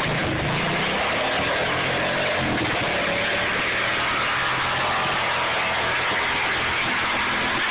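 Lawn tractor engine running hard under load as it drives through deep, runny mud, with the tyres churning and slinging mud. The engine note holds fairly steady, shifting slightly in pitch.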